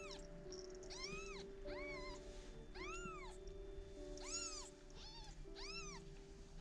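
Newborn kittens mewing: about seven short, high mews, each rising and falling in pitch, roughly one a second.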